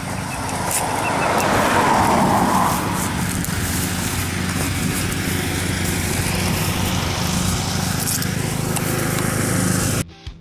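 An engine running steadily at a constant speed, with a louder swell about two seconds in and a few light taps over it.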